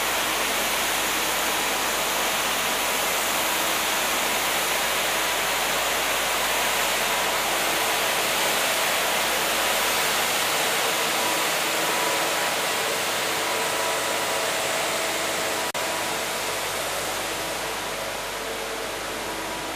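Steady rushing noise of street ambience with faint steady hum tones running through it. There is a brief click about sixteen seconds in, and the noise eases slightly near the end.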